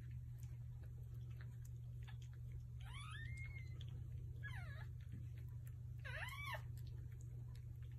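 A dog's high-pitched whimpers: three short cries a second or two apart, each sliding up and then down in pitch, over a steady low hum.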